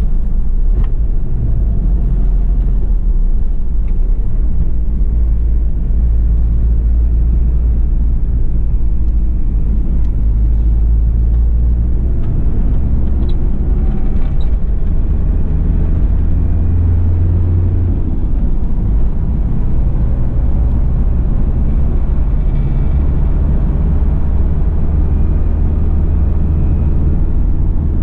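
Inside the cabin of a 1991 Toyota Land Cruiser Prado LJ78 on the move: the 2.4-litre 2L-TE turbo diesel droning at steady cruise together with road and tyre noise, a deep, even rumble. The drone swells briefly a little past the middle.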